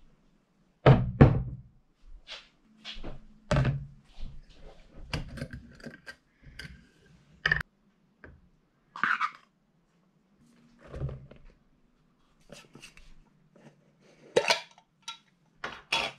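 Glass jars, a plastic mixing bowl and a measuring cup handled on a wooden table while flour is measured out: a series of thunks, clinks and scrapes, the heaviest about a second in.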